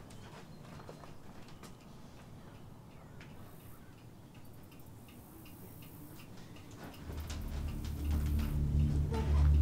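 Faint, irregular ticking over quiet room tone; about seven seconds in, a low sustained musical drone fades in and swells until it is loud.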